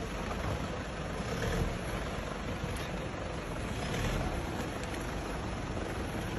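A fast river rushing over rocks in a steady wash of noise, with a Mahindra Scorpio SUV's engine running under it as it drives through the current.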